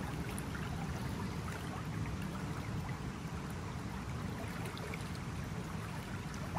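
Water of the Lake Biwa Canal flowing, a steady rushing noise with no change.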